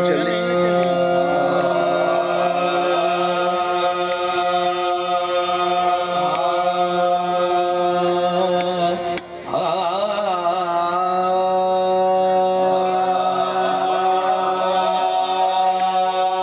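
Naat sung in qawwali style by a male lead voice in a long, wavering, ornamented line over sustained harmonium chords. The music breaks off for a moment about nine seconds in, then the voice and harmonium come back.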